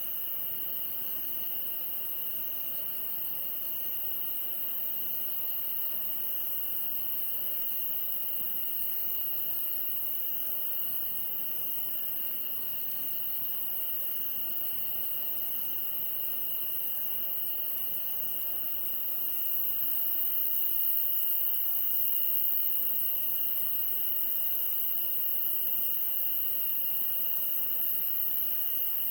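Chorus of insects such as crickets: a steady high trill, with a rhythmic chirp repeating about once a second over it.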